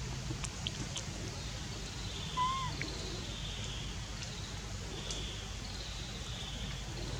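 A single short whistled animal call about two seconds in that rises and then falls, with faint high chirps and a steady low hum in the outdoor background.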